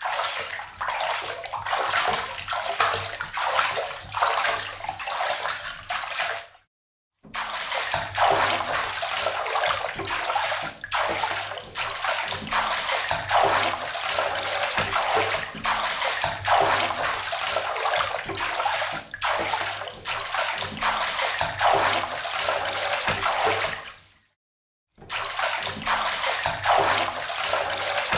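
Footsteps wading through water, each step a splash, a little more than one step a second, in three runs separated by brief silences.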